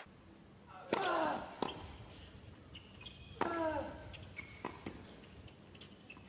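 Tennis rally on a hard court: sharp pops of the ball coming off racket strings, a handful of strokes a second or more apart. A player gives a short grunt that falls in pitch on two of the shots, about a second in and again midway.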